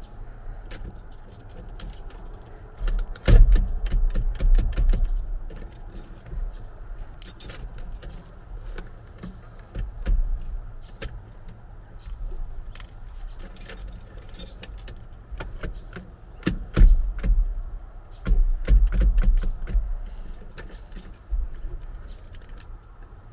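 Keys jangling on the ring hanging from the ignition while the steering wheel of a 1985 Ford F-150 is turned back and forth against the column lock, with clicks and several heavier thumps as it catches.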